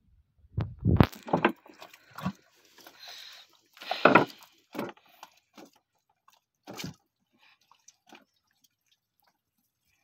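Irregular short scrapes, rustles and knocks from a hand fishing line being hauled in over the gunwale of a wooden outrigger boat, loudest about a second in and again about four seconds in.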